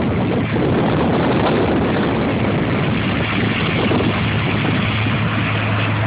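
Sugarcane harvesting machinery running steadily: an engine's constant low hum under loud, even mechanical noise.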